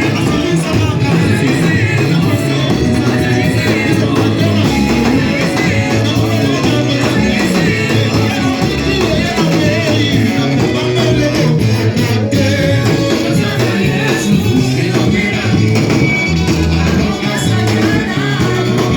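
Church worship music with a bass line and guitar, with singing voices over it.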